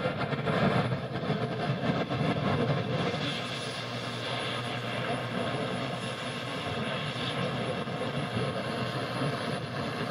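Steady AM radio static from a Kraco KID-581H radio tuned between stations during a night-time band scan: an even rushing noise with a few faint steady whistles and no station audio coming through.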